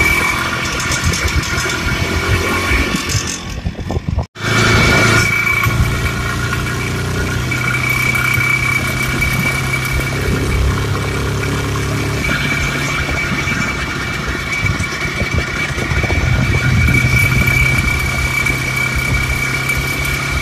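IZh Planeta 5's single-cylinder two-stroke engine running on the move, cut off for an instant about four seconds in. The warm engine makes crackling clicks in the cylinder at mid throttle, which the rider takes for detonation knock.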